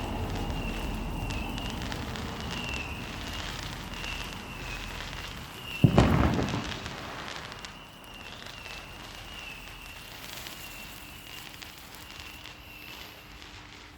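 Sparklers fizzing and crackling, with one loud bang about six seconds in from a firework going off, its sound dying away over a second or so. A faint, high-pitched warbling tone repeats in short pulses behind them.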